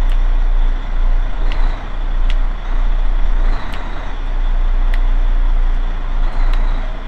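Motor yacht's twin diesel engines idling with a steady low rumble while the transmissions are briefly bumped into gear to check that they engage properly. A few light clicks come from the shift levers being moved.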